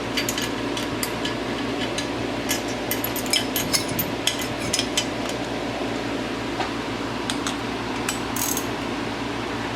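Hand tools working on a Honda engine's cylinder head: a scatter of sharp metallic clicks and clinks, thickest over the first five seconds, with a brief scraping burst near the end, over a steady background hum.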